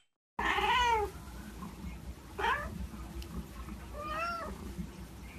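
Domestic cat meowing three times. The first meow, the loudest, falls in pitch about half a second in; a shorter rising meow comes near two and a half seconds and an arched one about four seconds in.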